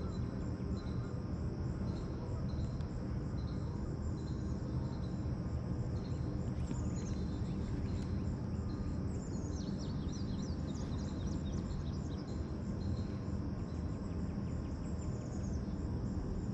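Insects chirping in an even pulsed rhythm, with a bird calling in short high falling notes, most of them about nine to eleven seconds in, over a steady low rumble.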